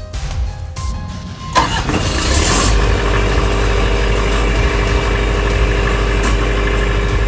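Cummins Onan marine generator started at its control panel: its engine cranks briefly about one and a half seconds in, catches, and settles into a steady run with a constant hum.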